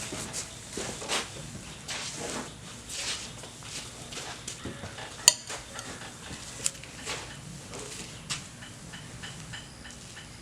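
Scattered clicks, light knocks and rustling of square hay bales being handled and stacked, with one sharp click about five seconds in.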